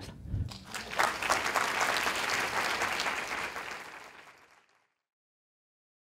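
Audience applauding, the clapping swelling about half a second in and fading out about four and a half seconds in.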